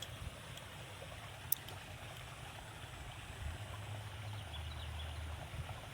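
Steady outdoor ambience of water flowing in a narrow rice-field ditch, under a low rumble, with a single sharp click about one and a half seconds in.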